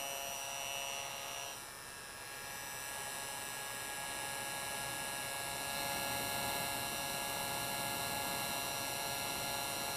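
Handheld electric heat gun running, a steady fan hum with a whine over it; the sound drops for about a second a second and a half in, then carries on steadily.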